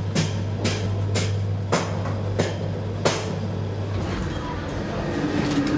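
Traction elevator car travelling in its shaft: a steady low motor hum with regular clicks that come further apart as the car slows. The hum stops about four seconds in as the car comes to rest.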